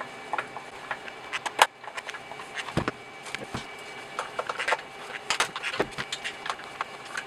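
Screws being backed out of a plastic speaker enclosure with a screwdriver: scattered small clicks, scrapes and taps of plastic and metal, with a sharper click about one and a half seconds in and a few dull knocks.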